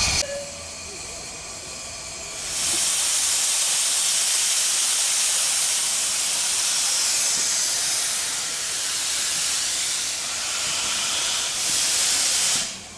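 Steam hissing from the standing 15-inch-gauge steam locomotive Northern Chief as it blows a jet of steam out low at its side. The hiss is fairly quiet at first, turns loud and steady about two and a half seconds in, and cuts off just before the end.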